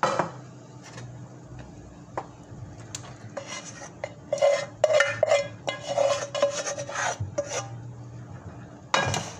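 Plastic spoon scraping and tapping against a nonstick pot as cooked rice is spread in a layer over chicken gravy: a knock at the start, then a quick run of short scrapes through the middle, and another loud scrape near the end.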